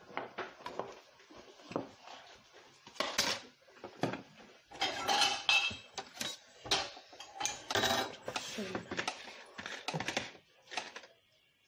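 Stainless steel mixing bowl clattering and scraping as raw chicken pieces are tossed in flour by hand, with irregular knocks of metal on metal from a small metal cup.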